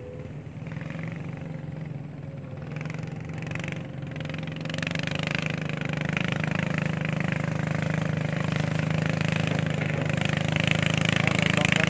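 A motor engine running at a steady pitch and getting steadily louder.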